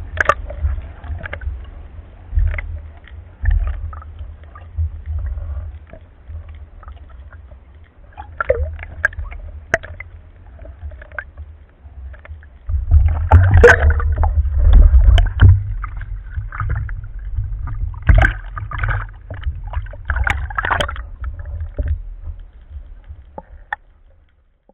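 Water noise picked up by an underwater camera as the spearfisher swims: a low rumble with scattered clicks and gurgling, splashy bursts, louder for several seconds in the middle.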